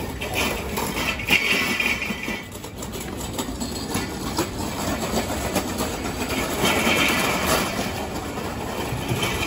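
Busy city street noise: a steady rumble and hiss of traffic, with louder swells twice as vehicles pass.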